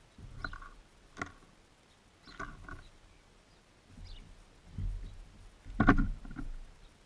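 Birds at a seed feeder right beside the microphone: irregular knocks, taps and rustles as they land, hop and peck at the seed, with a sharp click about a second in and the loudest knock about six seconds in.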